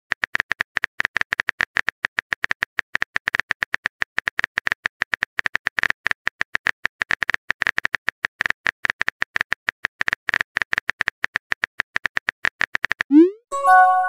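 Typing sound effect: a fast, irregular run of keyboard clicks. About thirteen seconds in it stops and gives way to a rising swoosh and a short chime as a new text message is sent.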